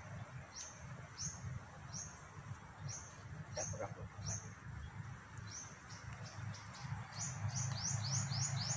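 A bird calling over and over with a short, high, downward-bent note, at first about once every two-thirds of a second, then quickening to about three notes a second near the end, over a low steady rumble.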